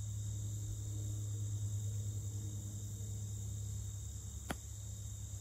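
Steady chirring of crickets with a low hum beneath. About four and a half seconds in, one sharp click of a golf club striking the ball on a chip shot.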